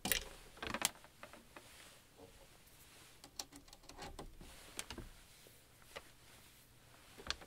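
Scattered light clicks and ticks of Eurorack patch cables being handled, their 3.5 mm jack plugs pushed into panel sockets.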